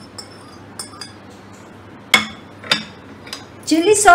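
Glass lid clinking as it is put down: two sharp clinks about half a second apart, with a faint tick before them.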